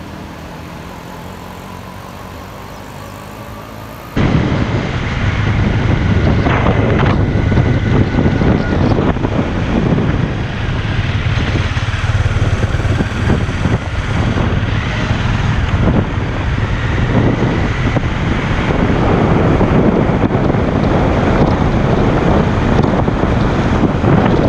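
Bajaj Dominar 400's single-cylinder engine running at road speed, with loud wind buffeting on the microphone over the engine's steady drone. For about the first four seconds, before the sound suddenly gets much louder, there is a quieter steady rush of water pouring over a dam spillway.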